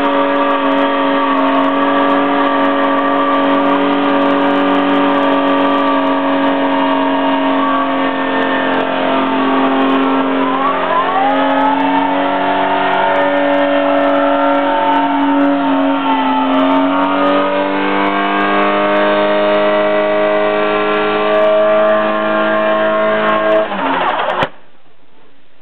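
Nissan R33 Skyline's RB20 straight-six held at high revs in a burnout, the rear tyre spinning on the road. The revs dip and climb back a couple of times, and the engine sound cuts off abruptly near the end.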